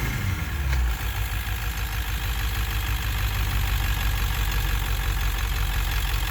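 Ford 7.3L Power Stroke V8 turbodiesel idling steadily, with a brief click about a second in.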